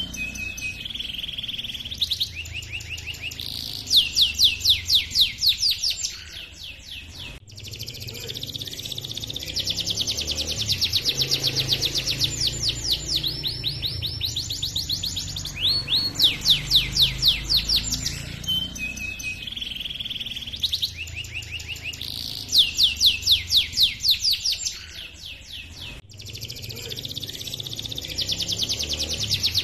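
Canary singing a long, busy song: fast rolling trills and rapid chirps in quick series, with short held whistled notes between phrases, over a faint low hum. The same song sequence comes round again partway through.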